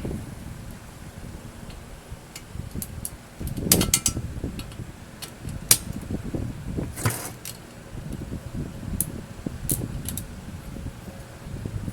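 Scattered clinks, knocks and rubbing of metal parts and tools being handled, the sharpest knocks a little under 4 s, near 6 s and about 7 s in.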